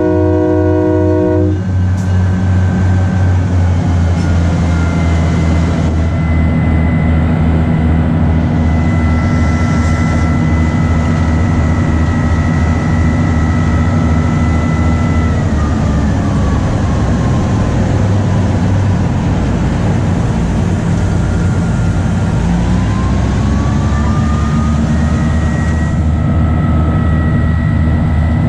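GE 80-ton diesel-electric switcher running under way: a horn blast cuts off about a second and a half in, leaving the steady pulsing drone of its diesel engines. A high whine from the drivetrain sinks away in the middle and climbs back near the end.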